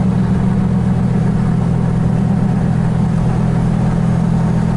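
A steady low engine drone at a constant pitch, like an engine idling.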